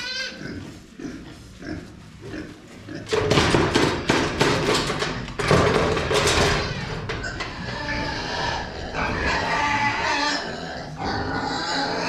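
Young show pigs (gilts) squealing and grunting at feeding time, loudest from about three to six and a half seconds in.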